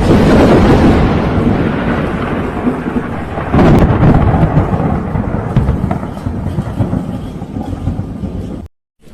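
Thunder: a loud clap opens a long rolling rumble, and a second sharp crack about three and a half seconds later sets off another rumble that slowly fades. The sound cuts off suddenly near the end.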